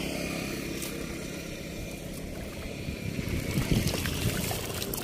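A motor vehicle's engine humming steadily, fading out after about two seconds. Then irregular splashing and rustling, louder near the end.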